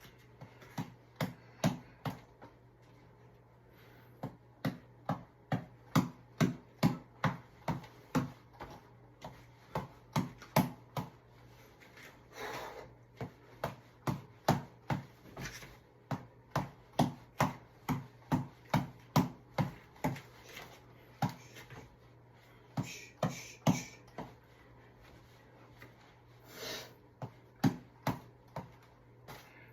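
Reflex ball (tap ball) being punched over and over: quick, sharp taps about two to three a second, in runs broken by a few short pauses, as if the ball is missed and restarted.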